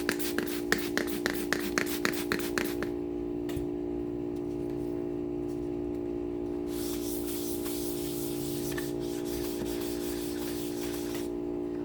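Hand wet-sanding of a guitar's finish: a quick run of about ten short scratchy strokes in the first three seconds, then a steady rubbing hiss from about seven seconds in, lasting about four seconds. Underneath, the constant buzzing hum of an old chest freezer that runs nearly all the time, which the owner suspects is giving out.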